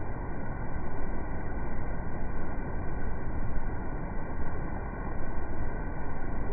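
Steady, dull rushing and churning of a coastal ship's wake, heaviest in the low end, rising and falling gently in loudness.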